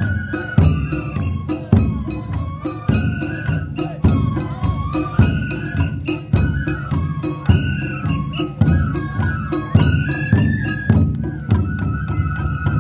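Japanese festival hayashi music: a bamboo transverse flute plays a wavering melody over a taiko drum beat about once a second and quick percussion strikes. Near the end the flute holds one long note.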